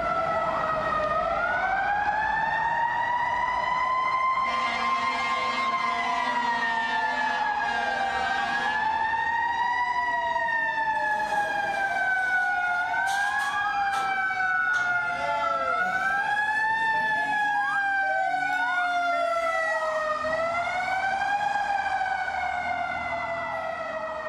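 Several emergency-vehicle sirens wailing at once, their overlapping tones rising and falling slowly, with quicker upward sweeps now and then; they fade away near the end.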